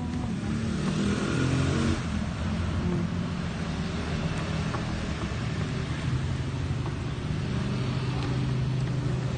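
A motor engine running with a steady low hum, alongside a wooden stick stirring duco paint in a bucket.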